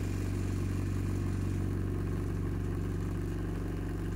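Vibration table's motor running with a steady low hum, shaking freshly cast epoxy-granite mineral casting so that trapped air degasses from the mix.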